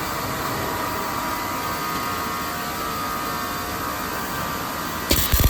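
Rack beam roll forming machine running steadily with a low hum and a faint whine from its motor and gear drive. Near the end comes a sudden burst of loud, rapid metallic knocks.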